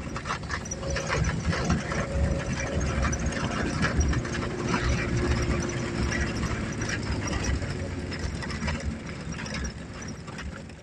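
Fiat Panda 750's small four-cylinder engine running as the car drives a rough dirt track, with the loud, rough exhaust note of a broken exhaust manifold, over a constant clatter of knocks and rattles. It gets quieter near the end.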